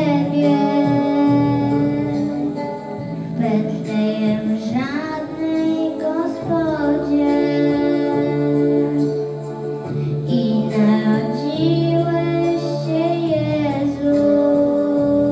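A young girl singing a Polish Christmas song solo into a microphone over an instrumental accompaniment, holding long notes with gliding changes of pitch between them.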